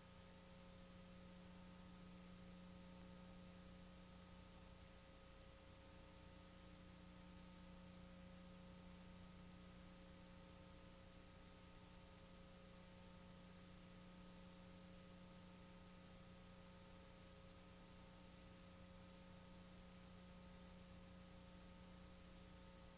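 Near silence: faint, even hiss with a steady low hum underneath.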